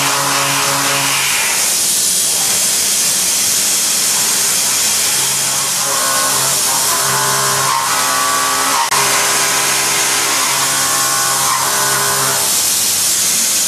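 Milling cutter cutting steel in a vertical mill, a steady hiss under background music of sustained chords.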